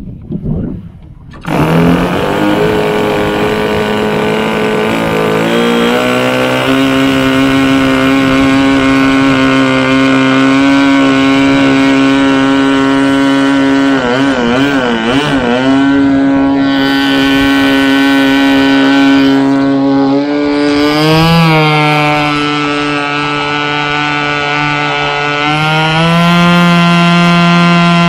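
Model airplane nitro glow engine firing and catching about a second and a half in, then running with a steady buzz. Its pitch drops to a lower, idle-like level a few seconds later, wavers in the middle and rises in steps near the end as the throttle is opened.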